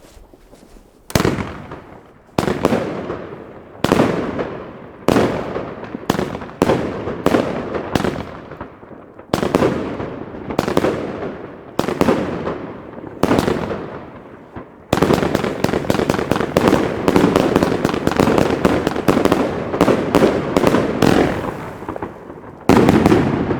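Iskra Zaplon firework battery firing: sharp bangs about every second and a quarter, each trailing off over about a second. About two-thirds of the way through they quicken into a dense run of rapid bangs, with one more loud bang near the end.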